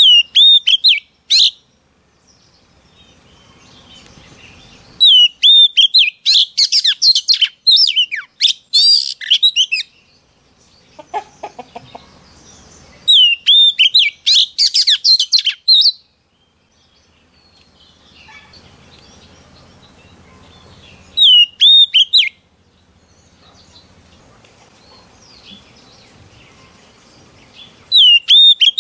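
Female oriental magpie-robin singing in phrases of one to five seconds with pauses between. Each phrase opens with a clear whistled swoop and breaks into rapid high twittering, and a new phrase begins near the end.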